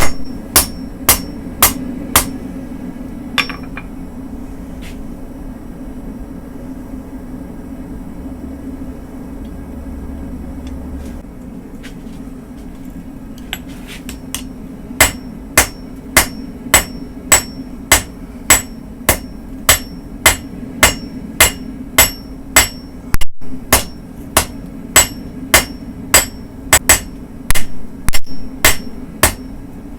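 Blacksmith's hammer striking steel on an anvil, forging car-spring steel into a weeding tool. A few strikes at the start, a pause of about twelve seconds, then steady, ringing blows about two a second until near the end, over a continuous low hum.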